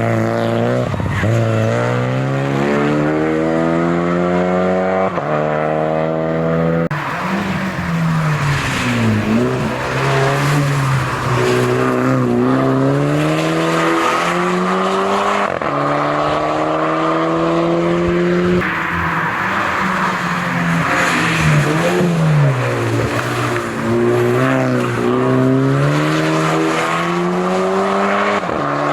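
Hill-climb race car engine at full throttle, climbing in pitch through the gears with a drop at each upshift. Several times the pitch falls away and builds again as it slows for a bend and accelerates out.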